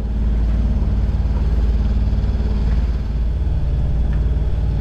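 A sailboat's engine running steadily under way while motor-sailing, a loud low drone with a fast, even pulse.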